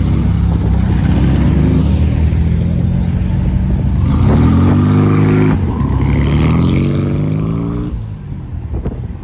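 A car engine revving hard as the car accelerates. The pitch climbs twice and drops off near the end.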